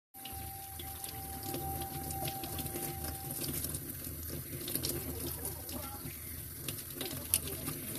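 Kitchen tap running into a stainless steel sink while a toothbrush scrubs the shell of a string-tied Chinese mitten crab, with small scratchy clicks from the brushing over the steady flow of water.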